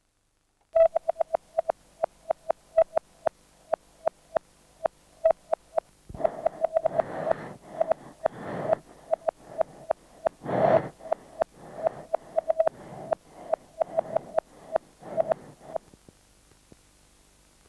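Rapid, uneven electronic beeps at a single mid pitch, about three or four a second. About six seconds in, a rough noisy hiss joins them, swelling and fading in waves. Both stop about sixteen seconds in.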